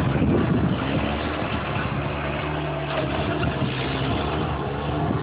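Engine of a small earthmover running steadily, with wind buffeting the microphone now and then.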